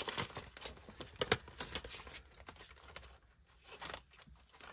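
Paper budget envelopes and banknotes being handled: light rustling with small clicks and taps, busier in the first couple of seconds and thinning out after.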